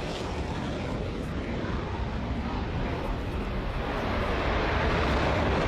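Steady jet engine noise from F-35A fighters, gradually getting louder and easing slightly near the end.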